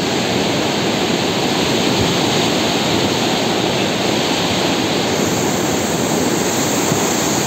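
A river in flash flood after a cloudburst: fast, muddy floodwater rushing with a steady, loud, unbroken roar.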